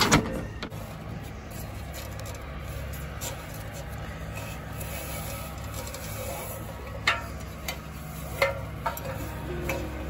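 Aluminium ladder on a truck ladder rack being tied down with a rope: a few light knocks and rattles over a steady low hum.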